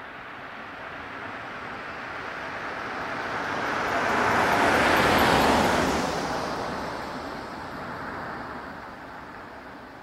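A single car driving past at about the speed limit: its tyre and road noise swells as it approaches, is loudest about five seconds in, then fades away as it recedes.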